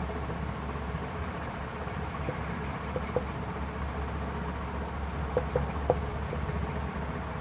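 Steady low background hum, with a few light ticks about three seconds in and again near six seconds as a marker writes on a whiteboard.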